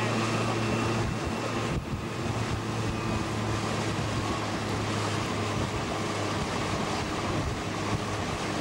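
Engine of a motor launch running with a steady low hum, heard from on board, with wind noise on the microphone and water rushing past the hull.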